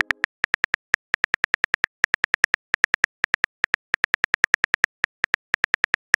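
Phone keyboard typing sound effect: a fast run of short key clicks, about six a second with brief pauses, as a text message is typed out letter by letter.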